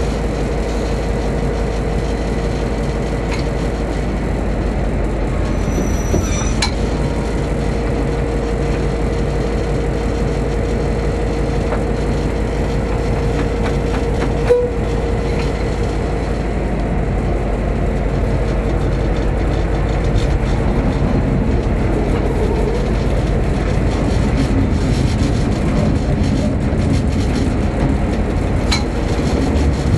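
General Motors EMD diesel engine of a former CIE A class locomotive running, heard inside the cab: a steady drone with a steady whine over it for the first half. A sharp click about halfway, and the drone grows a little heavier in the last third as the driver works the controller.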